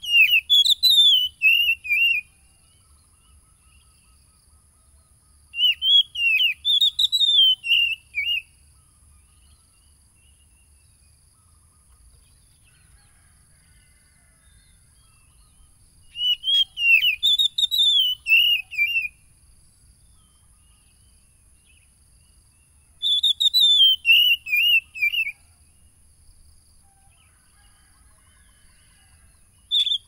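Oriental magpie-robin (kacer) singing four separate phrases, each a quick run of clear whistled notes that rises and then falls, lasting about two to three seconds, with pauses of several seconds between them.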